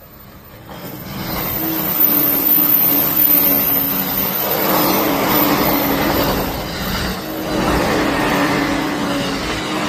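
JR East electric multiple-unit train passing close by. It grows loud over the first two seconds and then keeps running past loudly and steadily, with a low steady tone over the wheel and running noise.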